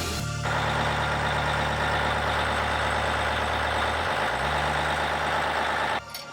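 Caterpillar D8T bulldozer's diesel engine running steadily, its pitch sagging briefly about four seconds in before recovering. The sound stops abruptly near the end.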